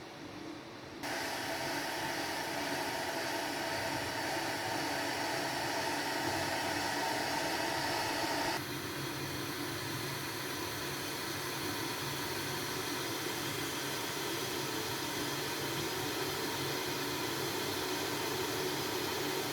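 Electric kettle heating water, giving a steady hiss. The sound jumps up suddenly about a second in and changes abruptly again a little before halfway.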